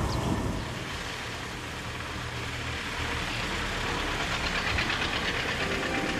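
Motor vehicle engine running steadily. Its low hum fades about halfway through and a higher, faster rattle takes over.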